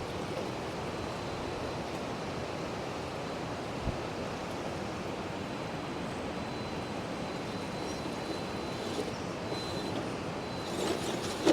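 Steady rushing of water over a flood-swollen river shoal. A faint high whine comes in about halfway through, and there is a single soft thump about four seconds in.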